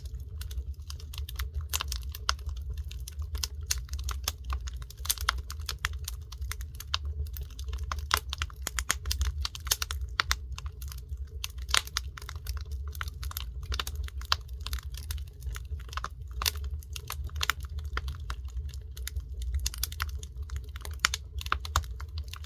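Wood fire crackling: a dense, irregular stream of sharp pops and snaps over a steady low rumble.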